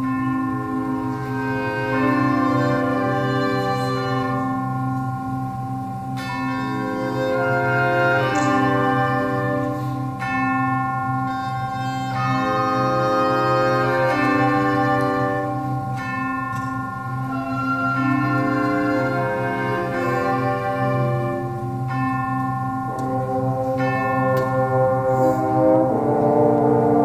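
A small concert band of woodwinds and brass (flutes, clarinets, saxophone, horn, tuba) playing sustained chords that change every second or two, with one high note held through most of the passage.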